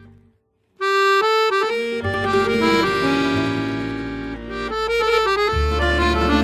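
Instrumental background music: after a short silence near the start, a melody starts abruptly, and a bass line joins about two seconds in.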